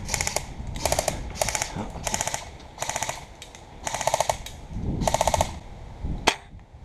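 Airsoft electric guns firing a string of short full-auto bursts, each a rapid rattle of evenly spaced shots lasting under half a second. A single sharp snap comes near the end.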